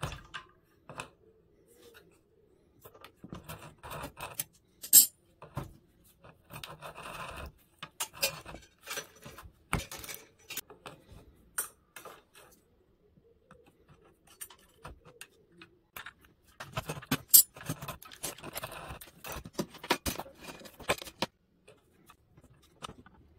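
Insulated wire being pulled with water-pump pliers through a wooden stripping block: irregular metallic clicks, clinks and scrapes of the pliers and wire, with a quieter spell in the middle.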